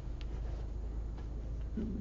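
Steady low room hum with a few faint light ticks, and a short low murmur near the end.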